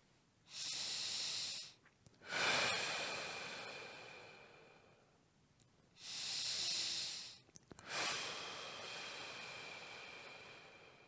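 A man's slow, deep breathing during a side-rib breathing exercise: two full breaths, each a short, even breath followed after a brief pause by a longer one that fades away.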